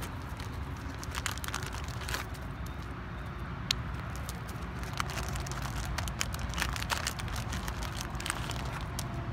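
Irregular sharp clicks and taps of a young Kangal dog's claws on brick paving as it walks about sniffing, over a low steady rumble.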